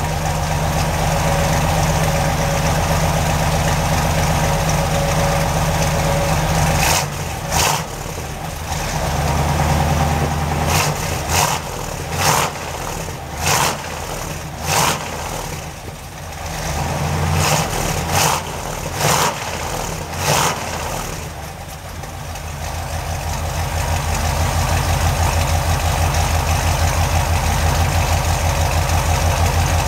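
383 stroker small-block Chevrolet V8 heard at its dual exhaust with full-length headers and Hooker turbo mufflers. It idles steadily, then from about seven seconds in the throttle is blipped in a series of quick, sharp revs. After that it settles back to an even idle, knocked down off the fast-idle cam while the engine is not yet fully warm.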